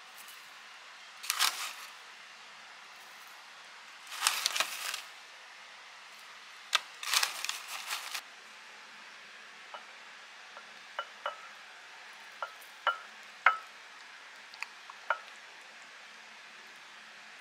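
Three short bursts of rustling from handling a packet of seaweed flakes, then a string of about ten light, sharp clinks of utensils against a ceramic bowl.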